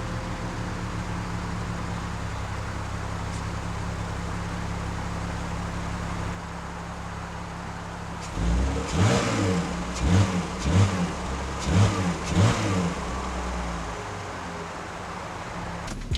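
BMW E46 Touring on its stock exhaust idling steadily, then given several short revs from about eight seconds in before dropping back to idle.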